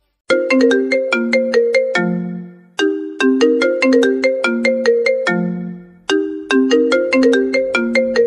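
Phone-ringtone melody: quick pitched notes, each struck sharply and fading, in a short phrase that repeats about every three seconds and ends each time on a held low note. It starts a moment in.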